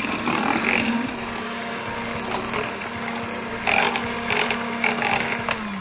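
Electric hand mixer running steadily, its twin beaters whisking eggs, sugar and oil in a glass bowl, with a few louder bursts of clatter. Near the end the motor is switched off and its hum drops away.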